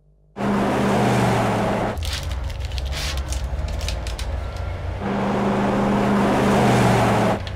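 Ambulance speeding along: a loud, steady engine and road rumble that cuts in suddenly about half a second in, with a run of rattling clicks through the middle stretch.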